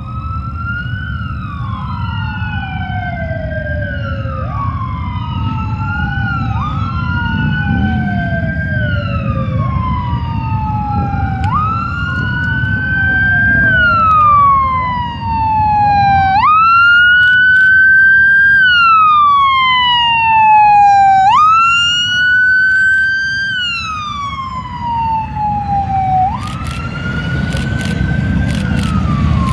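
Emergency vehicle sirens wailing as they approach, at first several overlapping, each rising quickly and falling slowly about every two seconds, over a steady low rumble of engines. Near the end the rumble of the motorcycle procession swells as the bikes draw near.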